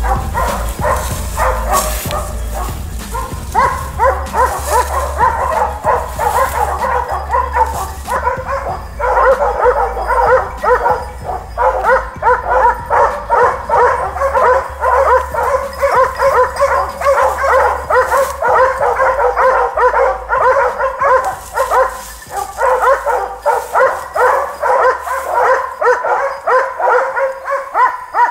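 Hunting dogs barking rapidly and without letup, a few barks a second with brief pauses, baying at a wild boar holed up in the thicket.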